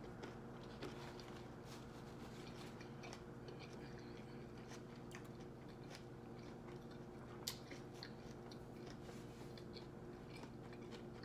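Close-miked chewing of a mouthful of veggie wrap (tortilla, spinach and fresh vegetables): soft, wet mouth clicks and smacks, with one louder click about two-thirds of the way through, over a steady low hum.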